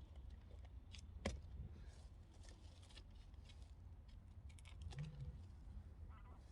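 Quiet background with a low rumble and scattered faint clicks and rustles; one sharp knock about a second and a quarter in.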